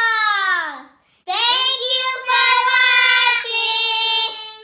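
Young girls singing in a sing-song voice: one long falling note, a short break, then several held notes that stop suddenly at the end.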